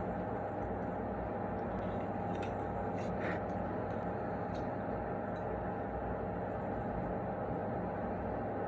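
A steady machine-like hum with a constant mid-pitched tone, and a few faint light clicks a few seconds in.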